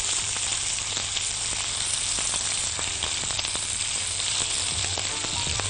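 Small bone-in lamb steak pieces searing in hot butter in a frying pan: a steady sizzle with many small crackles and pops, as the pieces are turned over with tongs.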